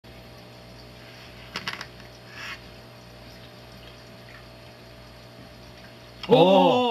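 A steady low hum with a few faint clicks and taps, then near the end a loud, drawn-out human exclamation that rises and falls in pitch.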